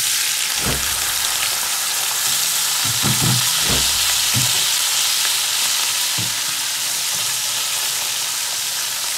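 Dried catfish frying in hot oil in a pan: a loud, steady sizzle, with a few short low knocks in the pan.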